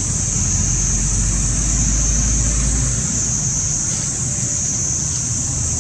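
Steady, high-pitched drone of an insect chorus, with a low rumble underneath that eases a little about three seconds in.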